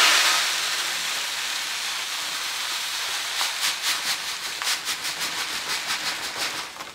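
Granular activated carbon pouring from a bag into a paper coffee filter: a steady hiss, turning about halfway through into a scattered patter of small clicks.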